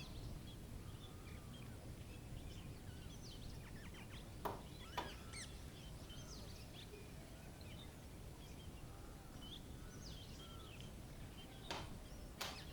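Faint garden ambience: small birds chirping in short scattered calls over a low steady rumble, with two sharp taps about halfway through and two more near the end.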